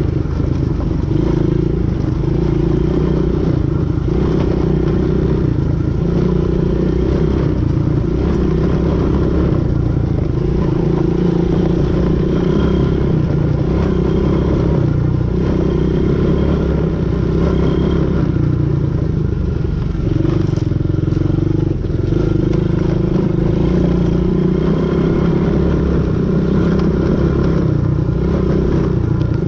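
ATV engine running steadily while being ridden, its pitch rising and falling a little with the throttle.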